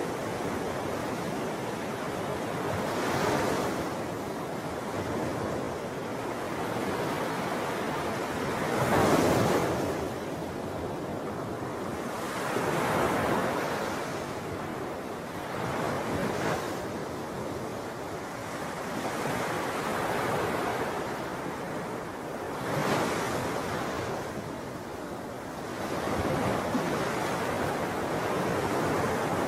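Wind and small waves lapping along the shallow lake shore: an even rushing noise that swells and eases every few seconds.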